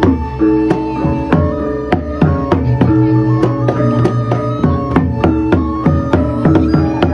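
Balinese baleganjur gamelan playing a lelambatan piece: ringing pitched gong tones over a busy run of sharp percussive strikes.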